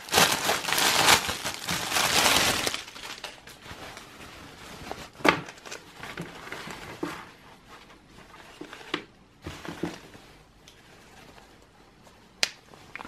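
A thin clear plastic packaging bag crinkling loudly as it is pulled open and off a folded nylon dog raincoat. Then quieter rustling of the raincoat being handled, with a few sharp clicks about five, seven, nine and twelve seconds in.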